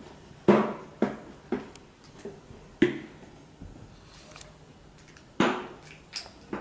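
About half a dozen sharp knocks and rustles from handling a scuba regulator's first stage and its detached hoses. The loudest comes about half a second in, another near the end.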